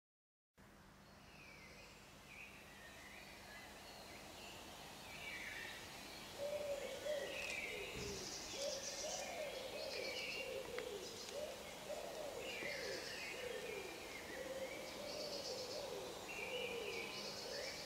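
Outdoor birdsong: scattered high chirps and trills. From about six seconds in, a lower, wavering cooing call repeats over and over.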